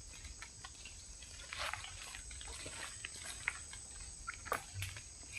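Faint outdoor ambience: a steady high insect drone, with scattered small clicks and short rustles.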